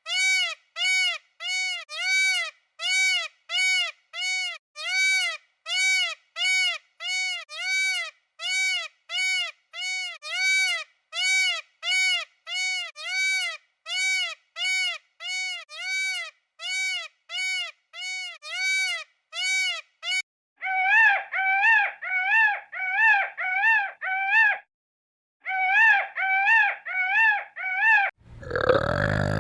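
An animal giving short, evenly spaced high calls, about one and a half a second, each rising and then falling in pitch. About two-thirds of the way through these give way to louder, wavering calls in two runs, and just before the end a lower, rougher sound starts.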